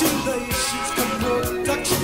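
Music with a steady beat, about two beats a second, playing from a vinyl record on a Fisher MT 223A turntable through the Fisher System 8700 amplifier.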